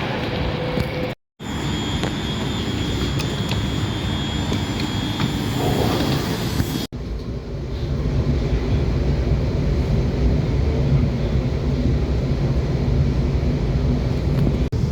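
Steady rumble of a passenger train in motion, heard from inside the carriage. It breaks off briefly about a second in, and after a cut near the middle the low rumble gets louder.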